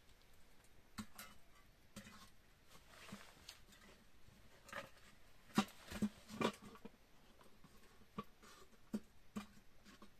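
Scattered light knocks and clicks of metal tongs, firewood and pots being handled at a small wood cooking fire, a few louder ones bunched near the middle.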